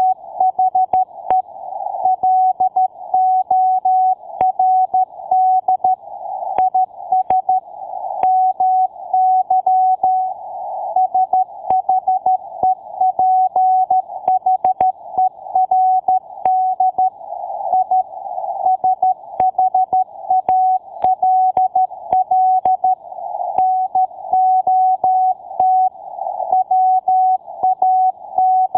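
Morse code beeps: a single steady tone keyed on and off in quick dots and dashes, with faint clicks where each beep starts and stops.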